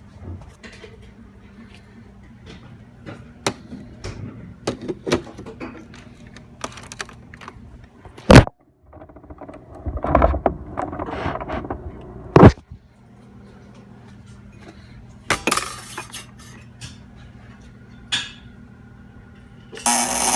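Clicks, clinks and knocks, with two loud thumps about eight and twelve seconds in. Near the end a Breville BES870XL espresso machine starts a loud buzzing made of several steady tones.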